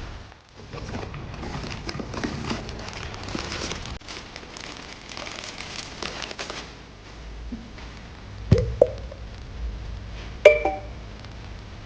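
Kitchen handling noise: several seconds of rustling and light clatter, then sharp clinks of kitchenware, two close together and a louder one near the end that rings briefly.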